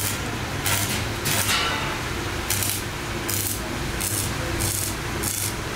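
Stick (arc) welding on a steel frame: the arc crackles and hisses in repeated surges, about two a second, over a steady low hum.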